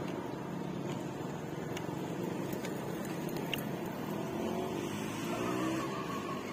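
Road traffic: a motor vehicle engine running steadily, with a few faint clicks in the middle.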